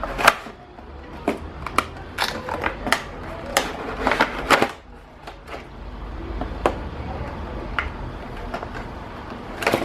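Irregular clicks and knocks of the plastic dog piggy bank and its packaging being handled, with a cluster of louder knocks about four seconds in and another near the end.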